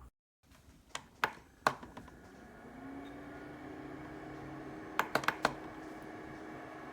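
Three sharp clicks, then a small dehumidifier's fan starting up, its hum rising slightly in pitch before running steadily, then a quick run of four clicks.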